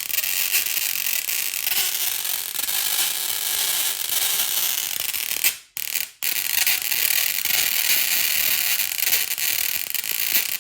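Arcs from a mini dual-resonant class-E solid-state Tesla coil playing Bluetooth-streamed audio, heard as a harsh, loud hiss with little recognisable music. It drops out briefly about halfway and cuts off at the end.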